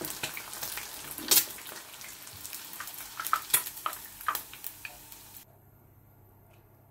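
An egg frying in very hot olive oil, sizzling with sharp spattering pops while a slotted spatula bastes it and lifts it out of the pan. The frying cuts off suddenly about five seconds in.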